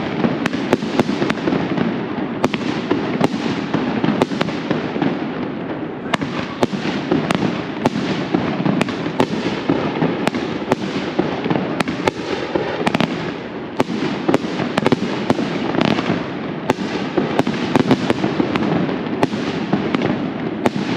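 A dense, continuous barrage of firecrackers: an unbroken crackle with many sharp bangs on top, several a second, without a pause.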